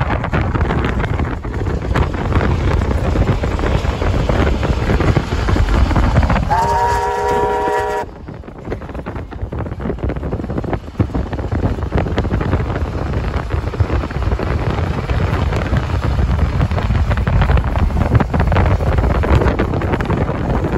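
Steam locomotive 3237's chime whistle blows once for about a second and a half over the steady rumble of the running train, with heavy wind noise on the microphone. The rumble drops suddenly just after the whistle and then builds back up.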